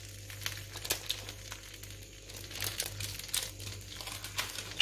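Dosa cooking on a hot tawa with toppings and cheese on it, giving off scattered, irregular sharp crackles and pops.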